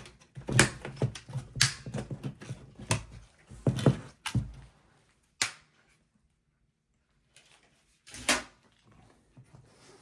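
Plastic front bezel of a slim desktop PC case being pried off: a run of clicks, knocks and handling of plastic clips for the first few seconds, a sharp snap about five seconds in, then a pause and another knock a little after eight seconds.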